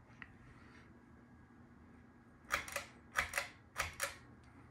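Ceiling fan pull-chain switch clicked through its speeds: three pulls, each pull and release giving a pair of sharp clicks, starting about two and a half seconds in. Under them is the low, steady hum of the Brookhurst ceiling fan running on medium, which is really quiet.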